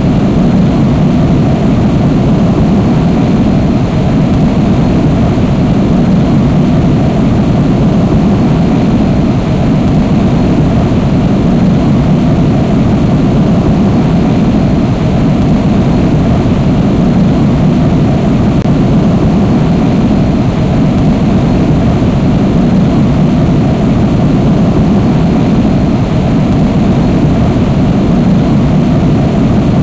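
Jet airliner engines running: a loud, steady low rumble that holds even without change.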